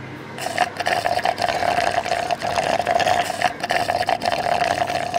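Milk being slurped through a drinking straw from a glass, a continuous rapidly fluttering gurgle that begins about half a second in.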